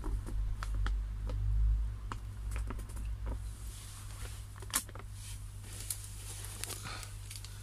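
Plastic pond liner crinkling and ticking under hands pressing a repair patch onto it: scattered small clicks, with a low rumble in the first couple of seconds.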